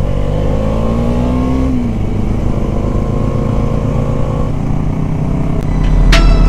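Motorcycle engine running while riding, its pitch rising a little in the first couple of seconds and then holding steady. Music comes in near the end.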